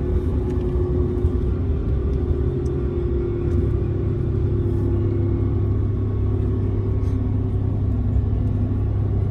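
Car interior road and engine noise while driving: a steady low rumble.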